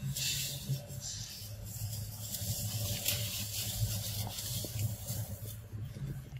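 Rustling hiss of dry leaves and undergrowth, uneven and strongest in the middle, with a few faint ticks in the second half. A steady low hum runs underneath.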